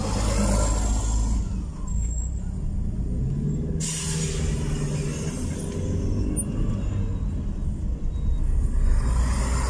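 Steady engine and road rumble inside a moving car's cabin, with the engine note rising a little about three to six seconds in. A hiss comes in near the start and again suddenly about four seconds in.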